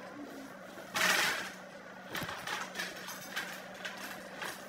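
Coloured pencil scratching and rubbing on paper in short scratchy strokes, the loudest about a second in, over a faint steady low hum.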